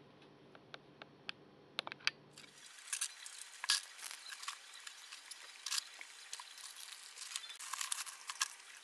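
A few sharp clicks over a low hum, then, about two and a half seconds in, a steady hiss with scattered crackles and rustles as plastic food containers are handled in a freezer compartment.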